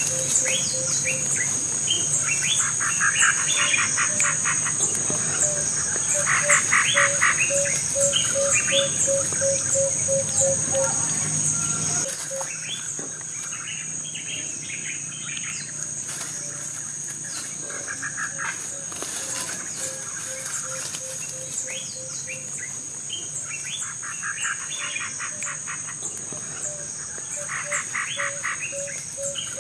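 Wild birds singing in repeated short trilling phrases over a steady high-pitched insect drone, with a low piping note repeated about three times a second. A low background hum drops away about twelve seconds in.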